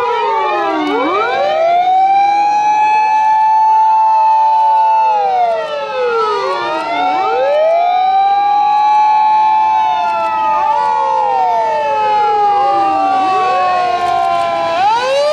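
Several Japanese fire engine sirens sounding at once, out of step with one another. The loudest winds up over about a second, holds its pitch, then falls away, about every six seconds.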